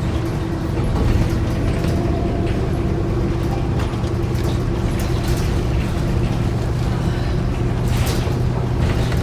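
Cabin of a moving New Flyer D40LF diesel city bus: a steady drone of engine and drivetrain with an even low hum, and scattered clicks and rattles from the body and fittings, a few louder ones near the end.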